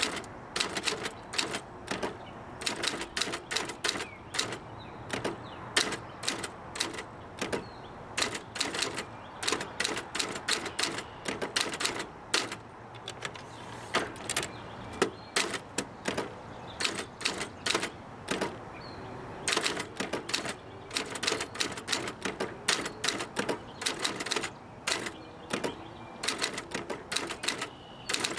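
Olympia SG1 manual office typewriter being typed on: a fast, uneven run of sharp type-bar strikes, several a second, with a few short pauses.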